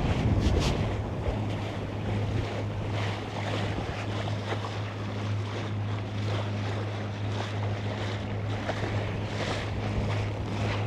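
Sailboat's inboard diesel engine running at a steady low hum under way, with water rushing along the hull and wind on the microphone.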